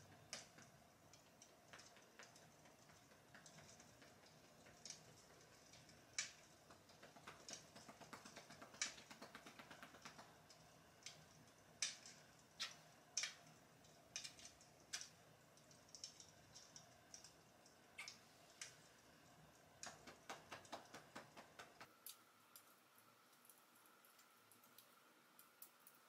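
Near silence with faint, irregular small clicks and ticks scattered through it. Near the end the background changes abruptly to a quieter floor with a faint steady hum.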